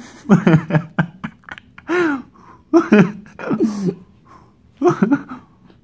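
Short, wordless voiced exclamations and gasps from two young men, several separate bursts with brief pauses between.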